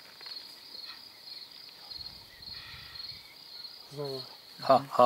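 Crickets chirping, a steady run of high, evenly spaced chirps about four a second. Near the end a person's voice sounds briefly and loudly, close to the microphone.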